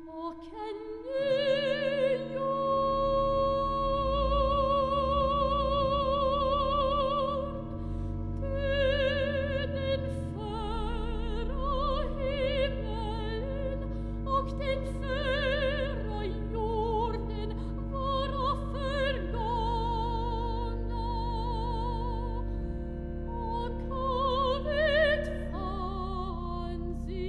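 Soprano singing with a wide vibrato over a Wolff & Associés pipe organ holding sustained chords, with deep pedal notes coming in about a second in. The voice climbs to a high note near the end.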